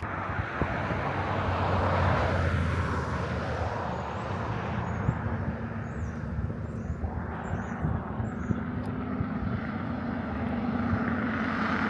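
Steady engine drone with a low hum, and a few faint bird chirps in the middle.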